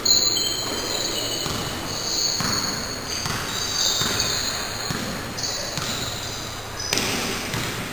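A basketball bouncing on an indoor court during a pickup game, with a sharp thud near the start and repeated dribbles after it. High squeaks of players' shoes on the court come and go throughout.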